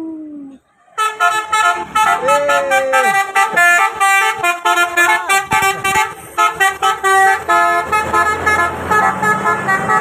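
Bus telolet horn, a multi-trumpet musical air horn, playing a rapid tune of changing notes from about a second in as the bus pulls away. The bus engine hums underneath near the end.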